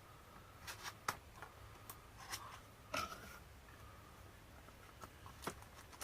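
A small cardboard box being opened by hand: faint, scattered scrapes and taps of the flaps and packaging, about half a dozen, with a pause in the middle.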